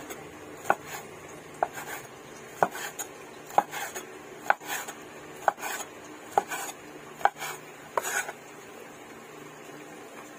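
Kitchen knife slicing raw squid into rings on a wooden cutting board: a sharp knock of the blade on the board about once a second, each followed by a short, softer scuff.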